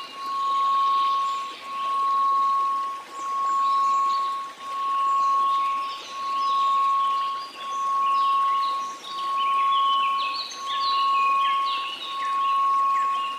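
A steady 1098 Hz sine tone that swells and fades about every second and a half, over a soft hiss of white noise. Scattered high, tinkling, chime-like notes run above it.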